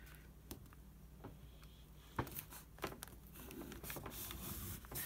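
Faint rustling and soft ticks of a thin sheet of paper being folded in half and creased with the fingers, over a low steady hum.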